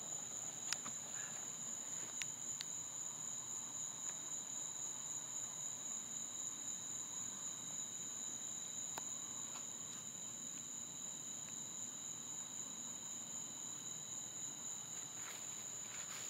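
Crickets trilling steadily as a continuous high-pitched drone, with a few faint sharp clicks.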